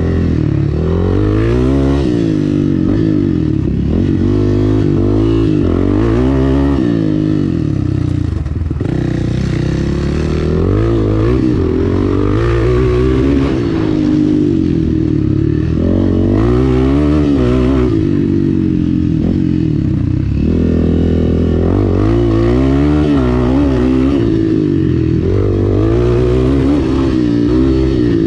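Honda CRF250F's single-cylinder four-stroke engine revving up and down as the dirt bike is ridden hard, the pitch rising and falling every couple of seconds as the throttle opens and closes.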